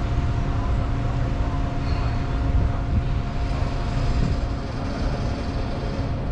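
Steady low rumble of the electric hybrid car ferry MF Matre under way, with a constant hum running through it.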